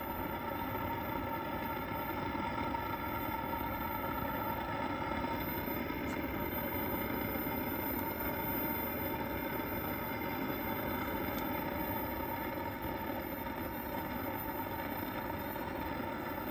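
Steady rushing roar of an uncovered aluminium pot boiling hard over an outdoor burner, with a few faint steady tones running under it.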